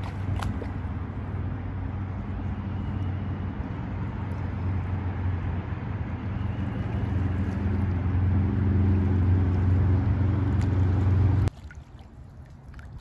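A motor running steadily with a low, even hum, slowly getting louder, that cuts off abruptly about eleven and a half seconds in.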